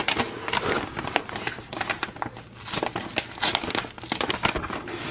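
Large yellow paper envelope being torn open by hand, the paper crinkling and ripping in many quick strokes.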